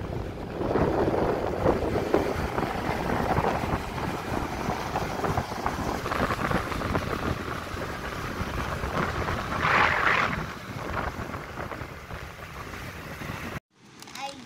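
Wind buffeting the microphone and road noise from a moving motorcycle in city traffic, with a louder rush of noise about ten seconds in. It cuts off abruptly near the end.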